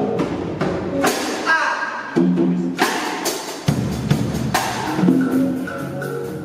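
Music with drums and percussion: sustained pitched notes with sharp drum hits every second or two.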